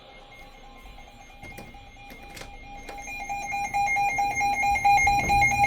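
Electronic emergency alert tone for a severe thunderstorm warning: a faint steady tone, then from about halfway through a fast, regular warbling beep that grows steadily louder.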